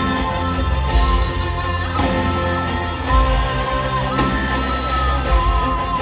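A live rock band playing at full volume: distorted electric guitar holding long lead notes over a heavy bass line, with drums keeping a steady beat of hi-hat or cymbal strokes about twice a second.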